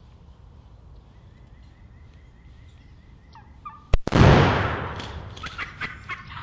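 A wild turkey gobbler gobbles loudly at close range about four seconds in. The call starts suddenly and trails off in a rattle over about two seconds. Before it there are only faint quick ticks in quiet woods.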